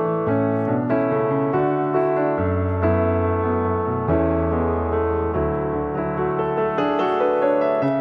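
Background music: sustained melodic notes over lower notes that change every second or two.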